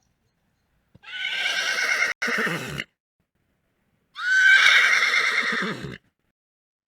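Horse neighing: two long whinnies, one about a second in and one about four seconds in, with silent gaps between them. The second opens with a rising squeal.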